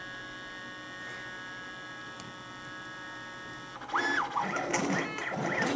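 CNC plasma table's stepper drives giving a steady electrical whine while the machine stands still. About four seconds in, the stepper motors start moving again, their whine rising, holding and falling in pitch as the axes speed up and slow down.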